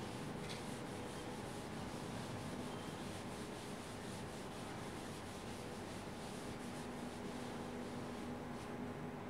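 Faint rubbing of a board duster wiping writing off a green writing board, in many quick repeated strokes.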